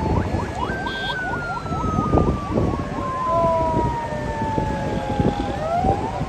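Several police sirens sounding at once from a passing convoy of police vehicles. A long wail glides slowly downward, overlapping a fast repeating rising yelp in the first half, and near the end one siren sweeps up again. Engine and traffic noise runs underneath.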